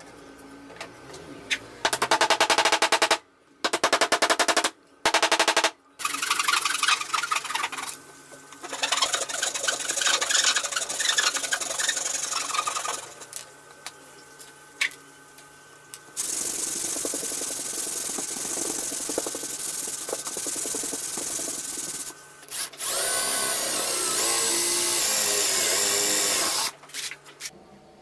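Power drill running in a series of bursts into wood, three short ones and then longer runs of several seconds, some with a steady pitch and some wavering, as screws are driven for the hinges joining the wooden boards.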